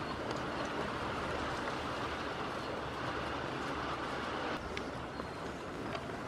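Steady rain on the barn roof, an even hiss with a few faint drips and ticks; it grows a little quieter about four and a half seconds in.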